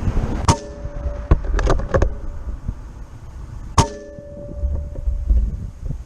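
Two shots from a .25-calibre Benjamin Kratos PCP air rifle, about three seconds apart. Each is a sharp crack followed by a short metallic ring, with a few lighter clicks between them.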